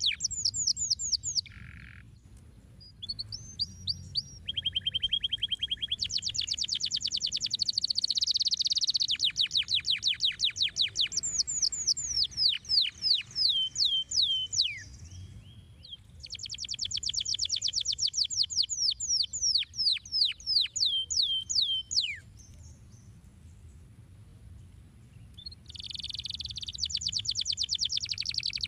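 Domestic canary singing long, fast trills of rapidly repeated notes, some phrases made of quick falling sweeps, with a short break about halfway and a longer pause of a few seconds near the end before a final trill.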